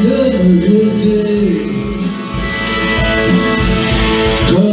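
A French pop ballad playing on a backing track with guitar, a man singing along into a handheld microphone and holding a long note in the second half.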